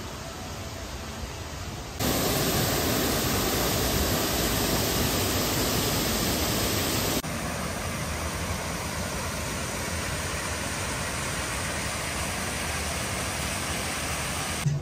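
Steady rushing of running water from a garden stream and waterfall, an even hiss with no separate events. It jumps louder about two seconds in and drops back a little about seven seconds in.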